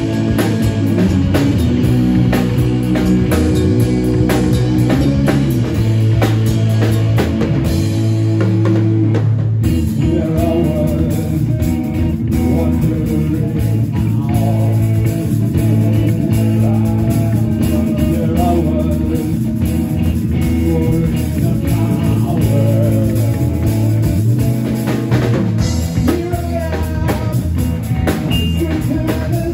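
Live rock band playing: electric guitars, electric bass and drum kit, with a short break about nine seconds in before the full band comes back with a wavering melody line over it.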